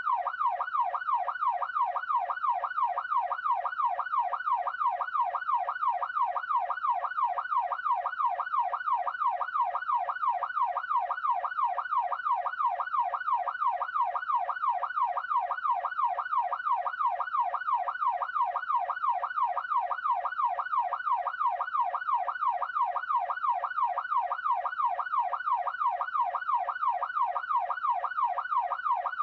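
Police siren in a fast yelp, its pitch sweeping up and down about twice a second without a break.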